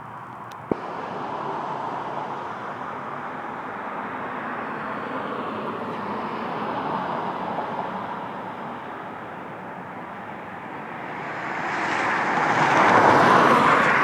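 Outdoor background noise with a vehicle passing, its sound swelling to a peak near the end and then easing off; a single sharp click comes just under a second in.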